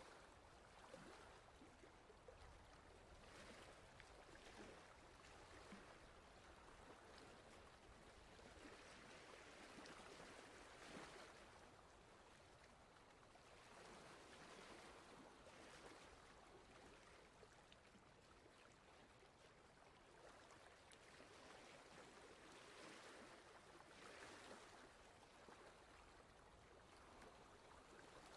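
Near silence with a faint rushing noise that swells and eases every few seconds.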